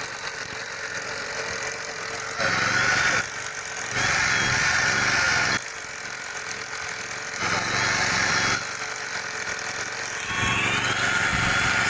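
Corded electric drill boring into a precast concrete ring with a masonry bit, run in four bursts of about one to one and a half seconds with short pauses between.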